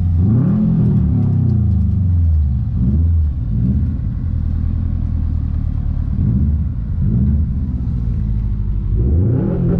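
Car engine running and revving with a low rumble, its pitch rising just after the start, a few times again past the middle, and once more near the end.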